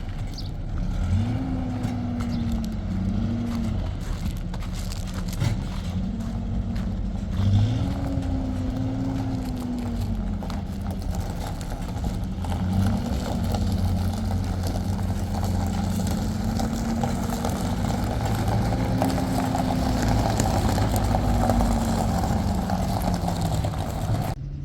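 Motor vehicle engine running under way, its pitch rising and falling again and again as the revs change, over a steady low rumble. The sound drops away abruptly near the end.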